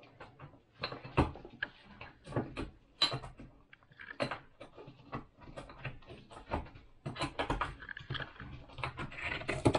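Pestle crushing whole spices (peppercorns, allspice, bay leaf) in a small white mortar: irregular knocks and grinding scrapes.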